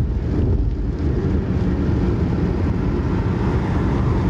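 Steady noise of a car driving on a wet road, heard from inside the cabin: low engine and road rumble with tyre hiss.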